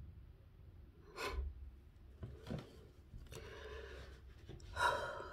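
A person breathing audibly: a few short breaths, the loudest near the end, with faint rustles of movement.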